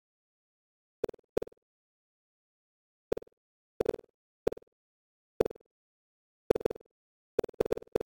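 Synthesized bounce sound effects: short, sharp pops with a quick decay, coming at irregular intervals with dead silence between, and a quick cluster of four near the end.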